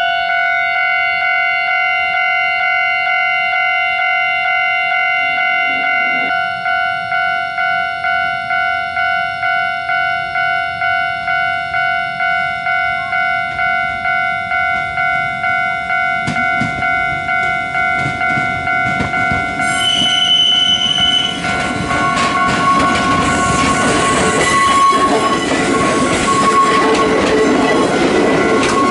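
Japanese level-crossing warning bell ringing in a steady rhythm as an Ichibata Electric Railway electric train approaches. About twenty seconds in a short horn sounds, then the train runs past close by, its wheel and running noise rising over the bell.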